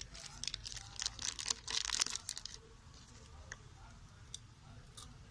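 Plastic wrapper of a small Cadbury Gems candy packet crinkling and tearing as it is opened by hand, in a quick run of crackles over the first two and a half seconds, then only a few faint clicks.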